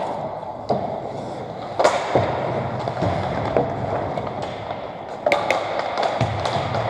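Ice hockey play: sharp clacks of sticks and puck over the steady scrape of skates on ice, with the loudest crack about two seconds in and a quick cluster of clacks around five and a half seconds.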